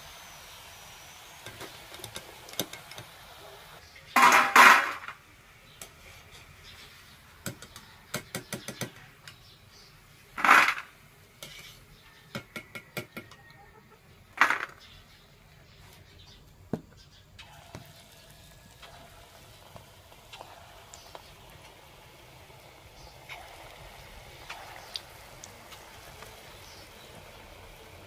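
A metal wire skimmer clattering against a metal kadhai and a steel plate as fried pakoras are lifted out and tipped off: three loud clanks with runs of quick rattling taps between them. Hot oil sizzles faintly underneath.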